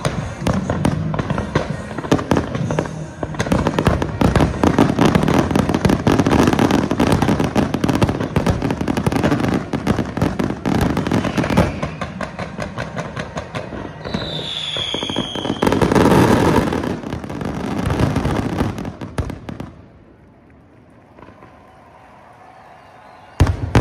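Aerial fireworks finale: a dense, rapid barrage of bangs and crackling, with a falling whistle about two-thirds of the way through. It stops abruptly, and after a few seconds of quiet one last loud bang goes off near the end.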